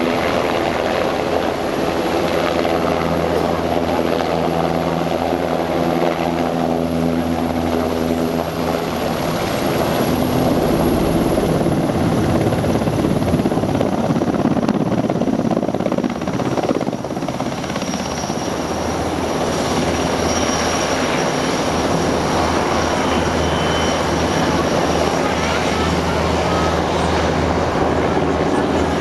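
Military helicopter's rotor and turbine engines running steadily as it hovers low and manoeuvres, with a rougher rushing sound for several seconds in the middle as it turns and moves off.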